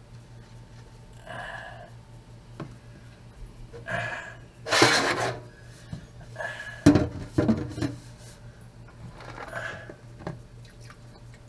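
Kitchenware being handled in a stainless-steel sink: a plastic colander and a small glass jar knocked and set down, with scattered rustling and a burst of scraping noise, and a few sharp knocks about seven seconds in.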